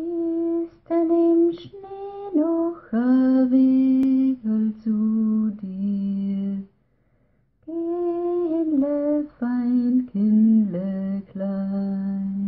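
A solo voice singing a slow, unaccompanied melody in long held notes, in two phrases with a short break about seven seconds in.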